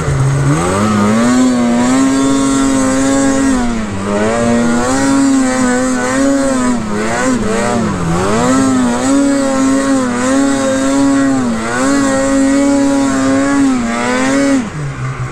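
Snowmobile engine running hard under heavy throttle, its pitch held high and dipping briefly a few times as the throttle is eased, then falling sharply near the end as the throttle is let off.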